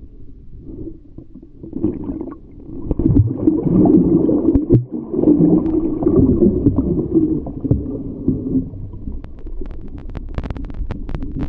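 Muffled rushing and gurgling of moving water heard underwater through a GoPro's waterproof housing, with bubbles passing, busiest in the middle. A run of sharp clicks comes near the end.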